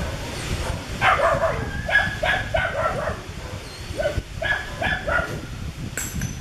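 Macaque cries: short, high-pitched, whimpering calls repeated in two bouts, one starting about a second in and another around four to five seconds in. A sharp click follows near the end.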